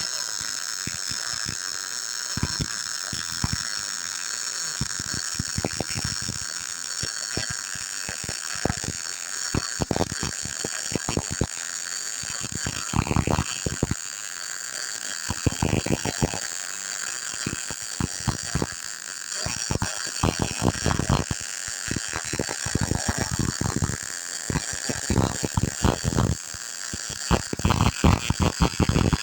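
Electric arc welding on steel plate: a steady hiss of the arc with constant irregular crackling and sputtering pops, the pops sharper and more frequent in the second half.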